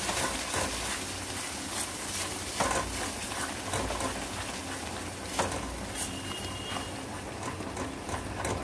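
Thick tomato-onion masala sizzling and spattering in a pan as a silicone spatula stirs through it, with scattered small pops. The masala is being fried down until the oil separates.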